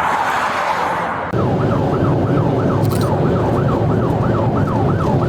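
Police car siren in a rapid yelp, sweeping up and down about three times a second over the rumble of the pursuing cruiser's engine and road noise. About a second in it changes abruptly from a dense, smeared siren sound to the clear, fast yelp.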